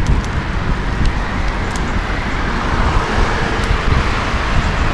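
Road traffic: cars passing close by on the road, a steady dense noise with a heavy low rumble, one swelling past about three seconds in.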